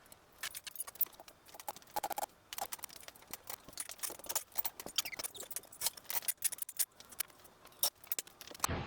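Irregular rapid clicks and light clinks of small hard objects being handled, with no steady running sound.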